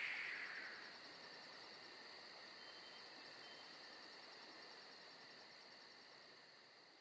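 Closing music dying away into near silence, its last high ringing fading over the first second or so, leaving only a faint steady high-pitched tone.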